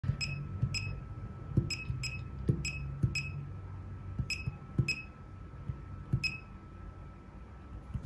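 Laser projection keyboard giving its short, high-pitched electronic click-beep for each keystroke, about nine irregularly spaced presses, with soft thuds of fingertips tapping the surface the keys are projected on.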